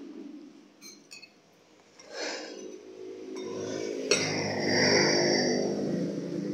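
A metal spoon clinking lightly against a ceramic soup bowl, twice near the start and once more sharply about four seconds in. From about two seconds in an engine runs, growing louder to its loudest about five seconds in.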